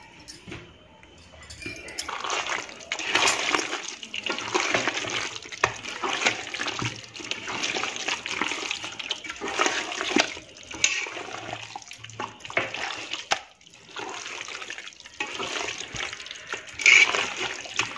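A bare hand squishing and squelching chicken pieces through a thick yogurt-and-oil marinade in a steel pot, in irregular wet strokes that begin about two seconds in and pause briefly near the end.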